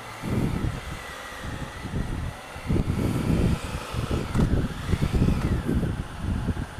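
Honda Africa Twin CRF1000L's parallel-twin engine running as the motorcycle moves slowly through stopped traffic, with uneven low rumbling surges.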